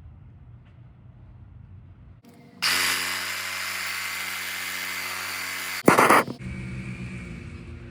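An electric power tool's motor whirring steadily for about three seconds, then a brief, much louder burst, followed by a lower steady hum.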